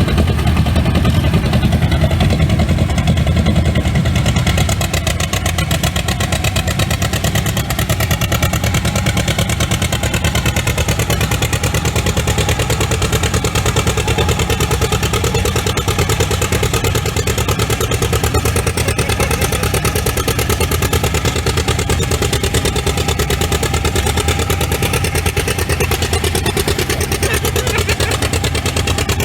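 Tractor engine running steadily with a heavy low rumble and rapid, even exhaust pulses.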